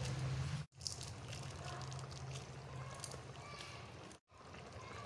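Thin tomato gravy simmering and bubbling in a metal kadai as sev is sprinkled in by hand, with small pops and ticks over a steady low hum. The sound cuts out to silence twice: under a second in and about four seconds in.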